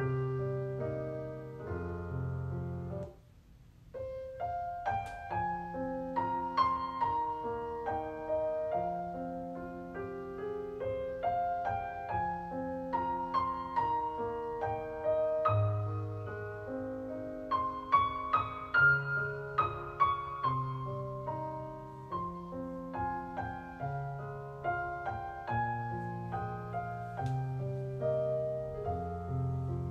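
Background solo piano music: a gentle melody of single notes over held bass notes, with a brief pause about three seconds in.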